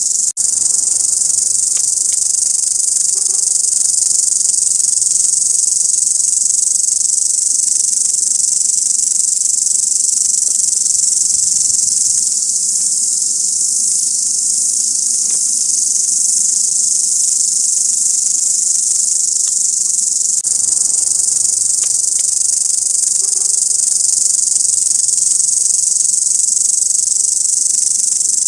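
Grasshopper stridulating: a steady, dense, high-pitched buzz that runs on without pause.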